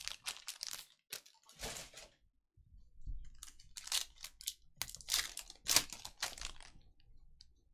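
Foil wrapper of a Panini Contenders football card pack crinkling and tearing as it is ripped open by hand, in a run of short crackling rustles.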